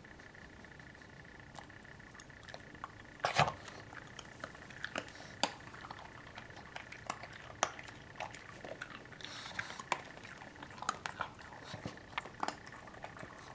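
Pug dog crunching and chewing a treat: irregular sharp crunches and clicks, starting about three seconds in with the loudest burst of crunching.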